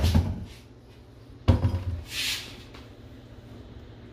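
Two dull thumps about a second and a half apart, each dying away within half a second, followed by a short hiss.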